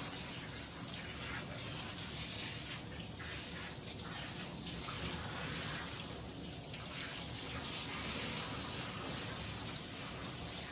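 Water running steadily in a grooming tub as a dog is washed.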